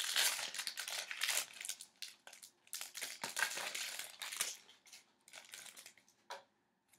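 Hockey card pack wrapper crinkling and rustling as it is handled and opened, in bursts over the first five seconds, then a few light clicks as it dies down.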